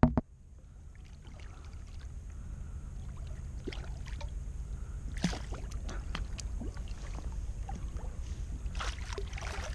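Low, steady rumble of wind and water around a fishing kayak, with scattered small splashes and knocks of gear. A sharp knock comes right at the start and a smaller one about five seconds in.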